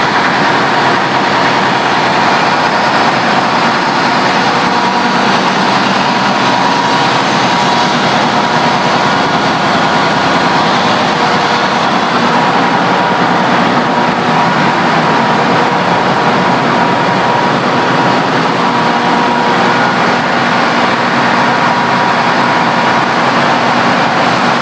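Large methane-fuelled engine-generator sets running, filling the hall with a loud, steady mechanical noise.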